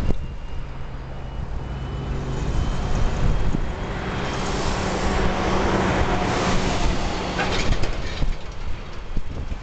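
Distant engine noise from a Boeing 737 and its tow tug at the runway end: a steady low hum under a broad rushing sound that swells about four seconds in and eases off near the end.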